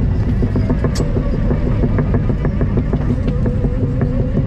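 Excavator's diesel engine running hard, with a fast regular clicking over the steady rumble and a whine that rises slightly near the end.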